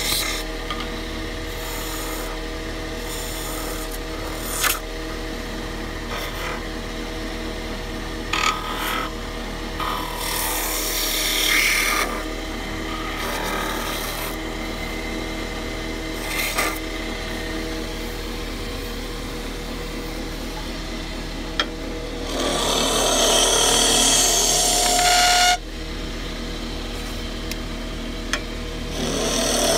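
Wood lathe motor running steadily while a hand-held turning tool cuts the spinning wooden blank in scraping passes: a few short strokes, a longer cut about ten seconds in, and the loudest cut of about three seconds two-thirds of the way through, which stops abruptly.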